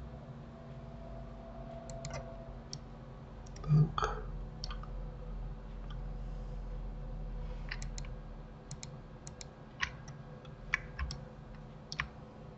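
Scattered computer mouse clicks and keyboard key presses, a dozen or so short clicks at irregular spacing, with a brief, louder low sound about four seconds in. A faint steady hum runs underneath.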